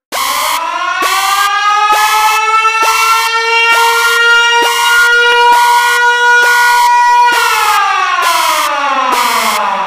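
Emergency-alert siren in the style of a civil-defence siren: it winds up in pitch over the first second, holds a steady wail, then winds down from about seven seconds in. A harsh buzzing layer pulses on and off over it about twice a second.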